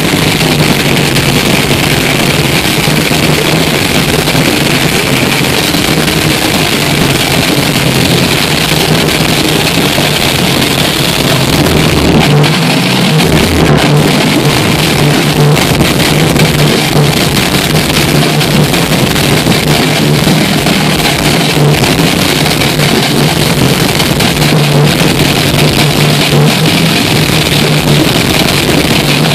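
Death metal band playing live at full volume, with heavily distorted electric guitar and bass, heard as a dense, unbroken wall of sound from the audience floor.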